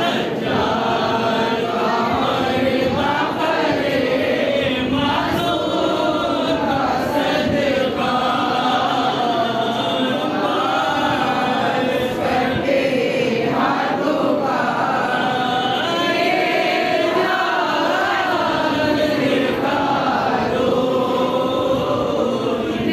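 Many voices chanting a devotional munajat (supplication) together in a slow, wavering melody, phrase after phrase without a break.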